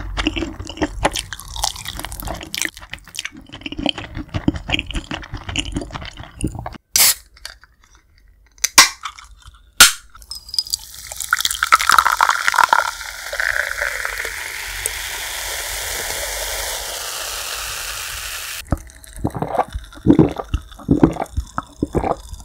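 Close-miked chewing and crunching of fried chicken, then a few sharp clicks. Cola is then poured from a can into a glass mug and fizzes steadily for about eight seconds before stopping suddenly. It ends with gulps as the cola is drunk.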